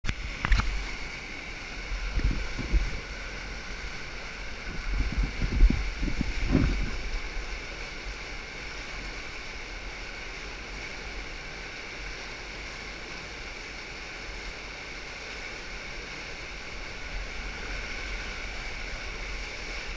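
Whitewater rushing through a concrete flume, an even, steady rush of water. In the first seven seconds several low thumps and a sharp click come from the camera being handled and set in place.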